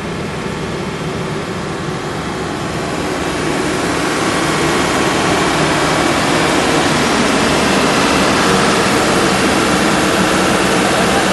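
A vehicle engine running hard, a loud steady roar that grows louder over the first several seconds.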